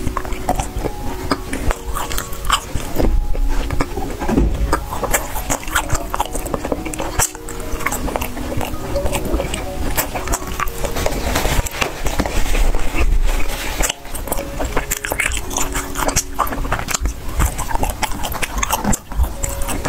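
Close-miked eating: repeated crisp bites and chewing of sweets and snacks, with background music playing underneath.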